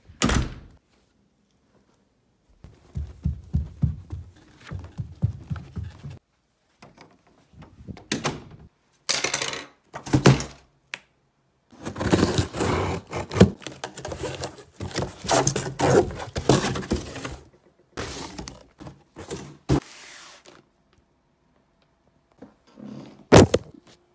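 A cardboard shipping box being handled and torn open: knocks and thumps of the box being moved, with stretches of ripping and tearing cardboard and packing tape. There is a sharp thump just after the start and another near the end.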